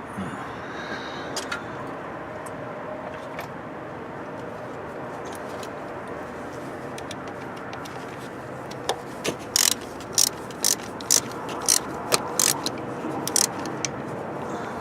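A hand ratchet clicking as it turns a fastener: a few faint clicks early, then a run of sharp clicks about two a second in the second half, over a steady background hiss.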